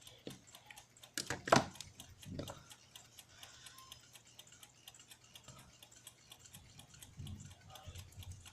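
Mechanical clock ticking steadily, about five ticks a second, with a few louder clicks of small metal clock parts being handled about a second and a half in.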